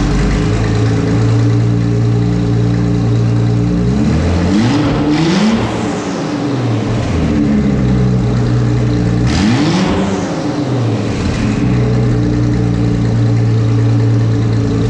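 Nissan 300ZX Z32 twin-turbo V6 running with an exhaust of only the downpipes, no rest of the system fitted. It idles steadily and is revved twice, about a third of the way in and again past the middle, each rev rising and falling back to idle.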